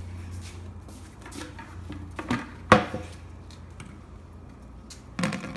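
Handling clatter: light clicks and rustles, with one sharp knock a little under three seconds in and a few more knocks near the end.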